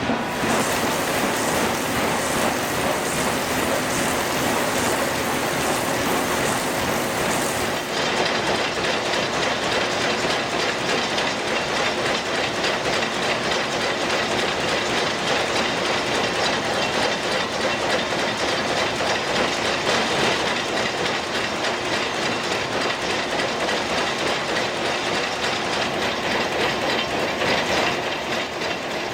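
Machinery running with a continuous rhythmic clatter; about eight seconds in, the highest hiss drops away.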